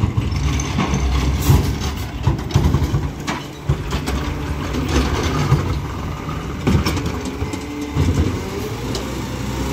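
Garbage truck engine running steadily with a low rumble, with repeated clunks and bangs as its automated side-loading arm handles the wheeled carts.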